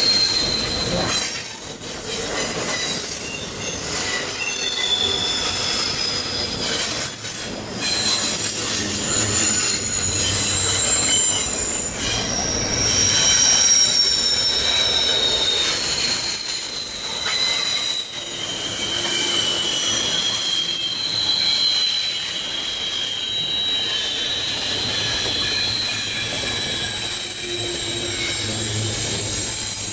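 Freight train wheels squealing against the rail on a sharp curve as the cars roll past: several high-pitched squeals overlap and shift in pitch over the steady rumble of the wheels.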